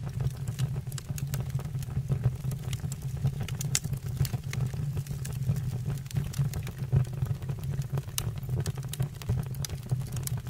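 Fire burning in a fireplace: a steady low rumble of the flames with frequent, irregular sharp crackles and pops.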